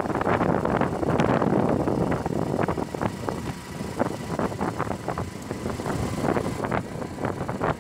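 Wind buffeting the microphone of a moving motorcycle, gusty and loud, with the motorcycle's engine running steadily underneath.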